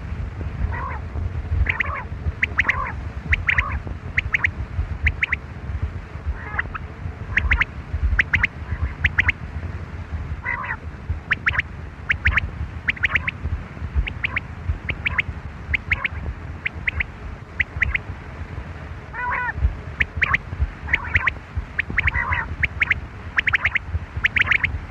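Quail calling over and over: short, sharp notes, often in quick clusters of two or three, repeated throughout over a low rumbling background.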